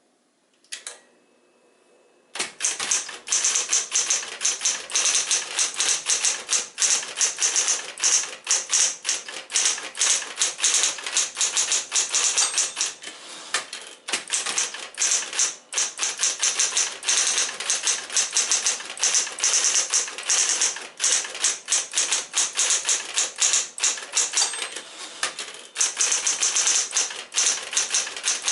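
Smith-Corona Coronet Electric typewriter typing fast, a dense run of sharp key strikes with only brief pauses. It starts about two seconds in, after a click and a faint steady hum.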